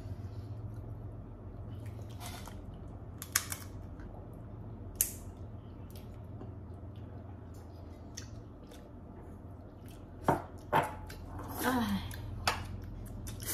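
Eating sounds at the table: scattered small clicks and taps of fingers working crab and shrimp shells against dishes, over a steady low hum, with a few louder knocks about ten seconds in and a short vocal murmur near the end.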